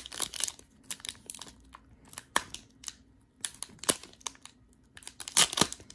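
Wrapper of a Panini Prestige football card pack being torn open and crinkled by hand, in scattered crackles with a louder burst of crinkling about five seconds in.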